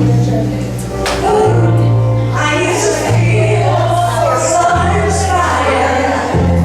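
Music played over a sound system: a song with a sung vocal melody, backing voices and a steady bass line.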